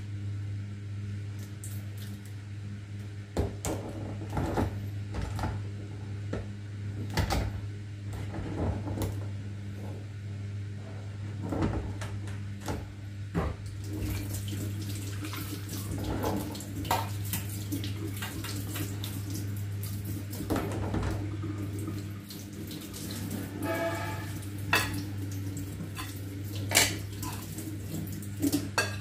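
Raw crabs being cut and cleaned at a stainless steel sink: scattered knocks and clicks of a knife and crab shells on a plastic cutting board. About halfway through, the kitchen tap is turned on and water runs into the sink. A steady low hum runs underneath.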